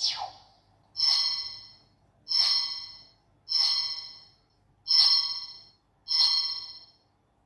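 Toy lightsaber's built-in sound effects: a quick falling electronic sweep, then five short synthetic chimes about every 1.2 s, each starting sharply and fading over about a second, as the button changes blade colour and light mode. The sound stops about seven seconds in when the sound is muted.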